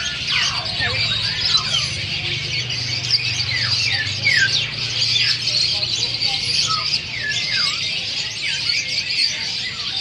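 Many caged birds chirping and squawking at once: a dense, steady high twittering with quick downward-sliding calls standing out above it.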